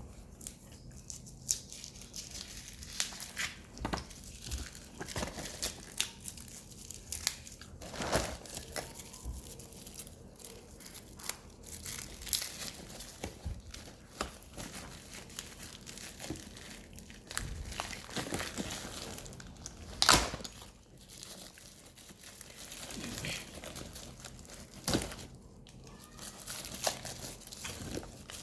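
Parcel packaging being handled and opened: irregular crinkling and tearing with many sharp crackles, the loudest snap about twenty seconds in.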